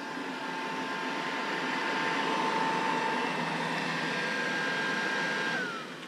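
IKOHS Netbot S15 robot vacuum running on a wooden floor: a steady hum of its suction fan with a high whine. Near the end the whine slides down in pitch and the sound drops.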